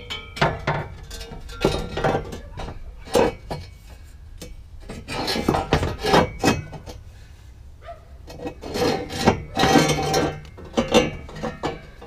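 Stainless steel long-tube exhaust header being worked up into the engine bay from below: irregular scraping and clanking of the metal tubes against the engine and chassis, with a few knocks that ring briefly.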